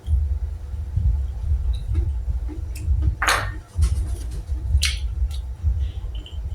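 Close-miked eating of boiled golden apple snails: chewing with a low rumble throughout, broken by several short slurps, the loudest a little past the middle.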